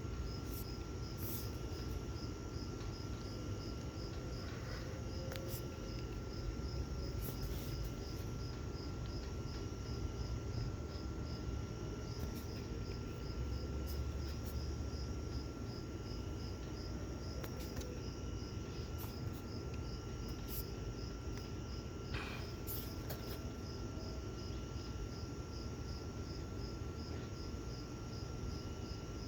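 Insects chirping in a fast, even rhythm over a steady low rumble, with a thin steady tone and a few faint clicks.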